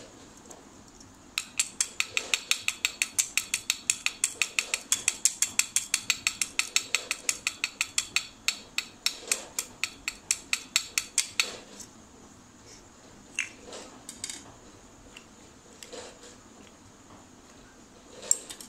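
A fast, even run of light metallic taps, about five a second for some ten seconds, then a few scattered clicks: a screwdriver tapping against an aluminium motorcycle carburetor body to work out the float pivot pin.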